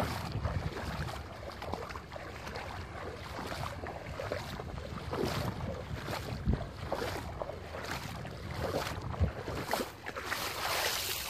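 Footsteps wading and splashing through shin-deep floodwater among grass, an irregular swish every half second or so, with wind noise on the microphone.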